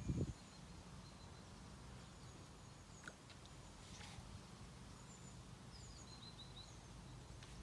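Small birds calling faintly with short, thin, high chirps, including a quick run of notes about six seconds in, over a steady low background rumble. A dull thump right at the start is the loudest sound.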